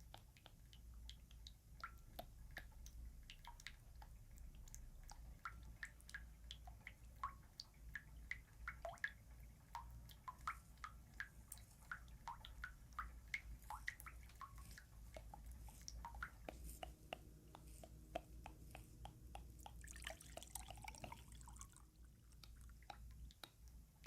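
Water drops falling one after another, each giving a short, faint plink at an uneven pace, as in ASMR dripping-water sounds.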